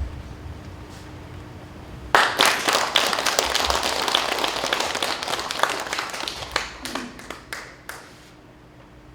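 Audience applauding: it breaks out suddenly about two seconds in, thins to a few scattered claps and dies away near the end.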